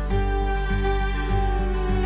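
Instrumental background music with held notes over a steady bass.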